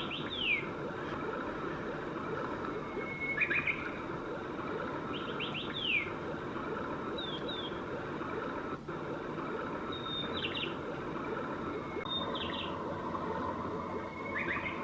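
Recorded birdsong from a sound machine: short falling chirps every second or two over a steady rushing background. It is played through the Duafire projector nightlight's small built-in speaker as one of its nature sounds.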